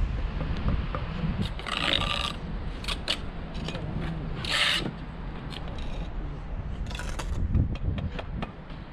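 A steel trowel scraping and rasping against a stone block and its mortar bed, in two short scrapes and then a third near the end, with light knocks and taps between them as the stone and a spirit level are set against the wall.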